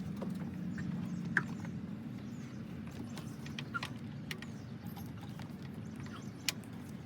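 Scattered light clicks and taps of a breaker bar and socket being fitted to the serpentine belt tensioner's square drive, over a steady low hum.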